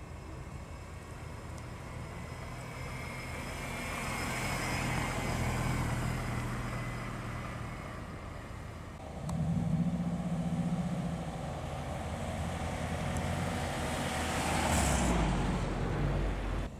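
Modern Mini hatchbacks driving slowly past one after another. The engine note and tyre noise swell as each car comes close, a stronger engine note comes in about halfway through, and the loudest pass is near the end.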